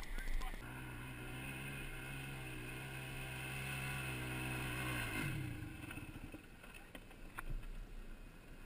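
ATV engine running at a steady pitch, then dropping away sharply about five seconds in, leaving a quieter rumble with a few clicks.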